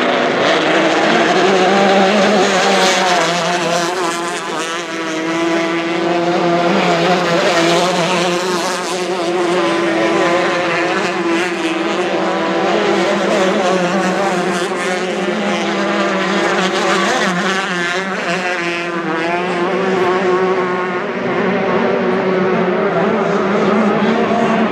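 Several F-350 class racing boats' outboard engines running flat out at high revs. Their overlapping pitches waver up and down with throttle changes through the turn.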